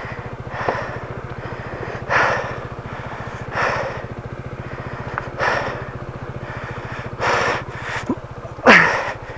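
A Honda ADV scooter's single-cylinder engine idling steadily while the bike lies on its side. Over it come five heavy breaths and strained grunts, the loudest near the end, from the rider's effort to lift the fallen bike.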